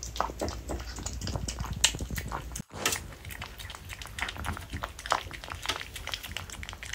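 A small dog eating soft ripe persimmon pulp from a ceramic bowl, a fast run of wet lapping, smacking and slurping clicks. There is a momentary break a little under three seconds in.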